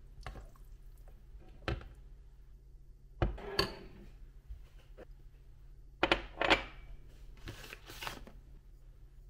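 A few separate knocks and clatters of objects being handled, some in quick pairs, with a faint low hum between them.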